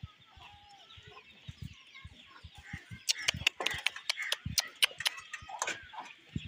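Chickens clucking softly in the background, and from about halfway a quick run of sharp clicks and rustles, the loudest sounds, around goats feeding at a wooden fodder trough.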